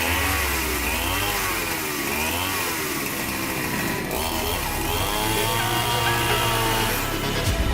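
Chainsaw engine revved up and down several times, its pitch rising and falling with each throttle blip, then held higher for longer near the end.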